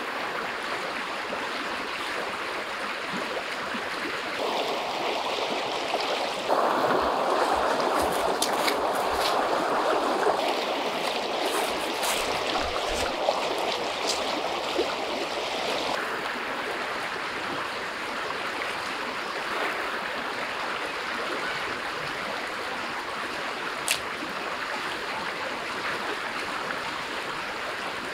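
River water running over rocks in shallow rapids: a steady rushing flow, louder for a stretch in the first half, with one sharp click about 24 seconds in.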